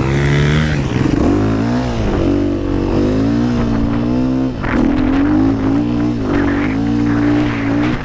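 KTM dirt bike engine under load in soft sand, the revs climbing and dropping back several times as the throttle is worked.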